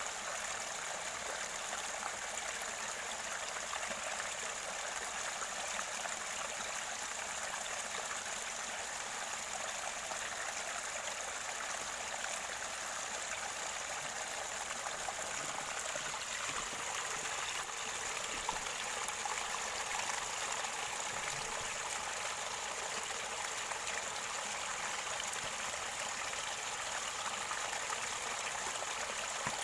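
Mountain river water gurgling steadily near its spring source.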